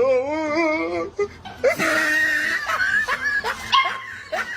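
A dog vocalizing: a long wavering cry in the first second, then a string of shorter calls.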